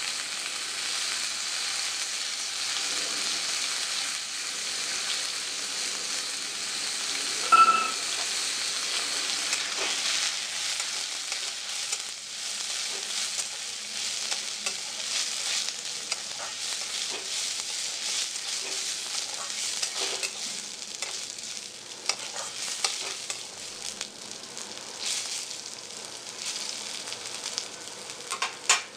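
Soaked raw rice and cashews sizzling in hot ghee in a steel kadhai, stirred with a metal spatula that scrapes and taps the pan, lightly frying the rice for kheer. About eight seconds in there is one brief, loud high-pitched ring.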